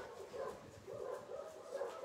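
Dogs whining softly in short calls, several a second.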